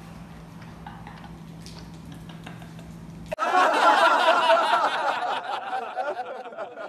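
A quiet room with a low steady hum, then about halfway through laughter starts suddenly and runs on until near the end.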